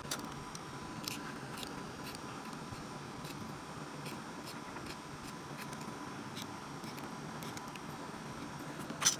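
Small flat blade scraping the enamel off the end of a copper winding wire on a motor armature, readying it to be joined to the commutator: faint irregular scratches and clicks, with a sharper click near the end.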